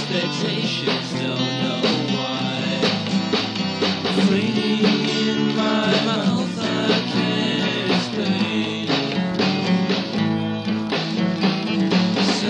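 Band recording playing: a guitar-led song with a steady beat.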